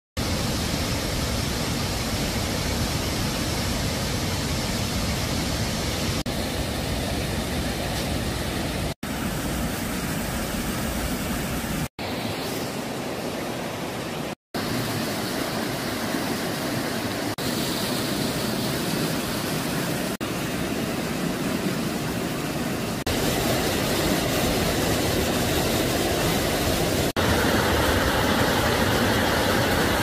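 Steady rush of falling and flowing water from a waterfall and a fast, rocky mountain stream, cut together from several takes. It drops out for an instant at a few cuts and grows louder in the last few seconds.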